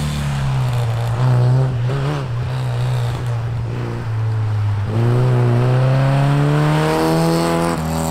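Sports car engine being driven hard around a tight course. The engine note wavers and dips with the throttle at first, then climbs steadily from about five seconds in and drops sharply near the end as it changes gear.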